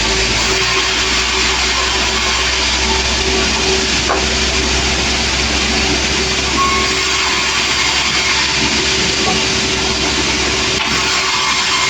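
Sawmill machinery running steadily: a loud, even noise with a constant hum and no break.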